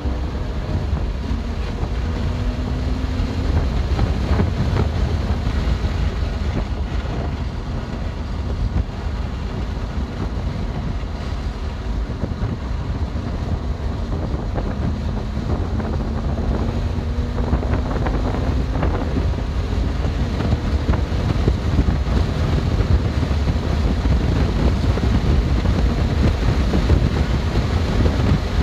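BMW M2 Competition's twin-turbo straight-six driven at speed on a race track, mostly covered by heavy wind and road rumble; the engine note climbs under acceleration about halfway through.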